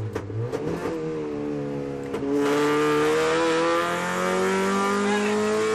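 Opel Astra GSi rally car's engine heard from inside the cabin, revs falling off the throttle through the chicane. About two and a half seconds in it goes to full throttle, louder, with the revs climbing steadily as it accelerates down the straight.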